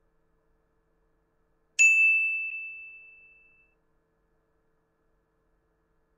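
A single bright bell-like ding, struck once about two seconds in and ringing out on one clear pitch, fading away over about two seconds.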